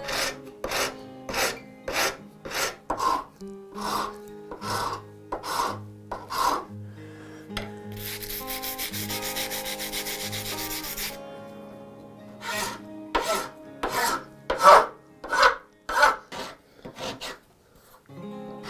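Hand filing of a hardwood screwdriver handle scale: rhythmic scraping strokes, about three a second, with a stretch of faster, continuous rasping in the middle.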